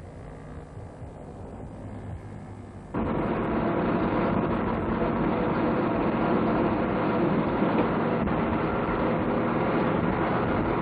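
Faint background for about three seconds, then a sudden cut to a vehicle engine and road noise running steadily, recorded from a vehicle driving in a military truck convoy.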